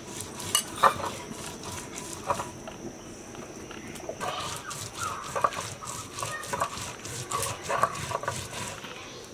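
A metal spoon clinking and scraping against a stainless steel plate in scattered light taps as spice paste is spooned onto fish.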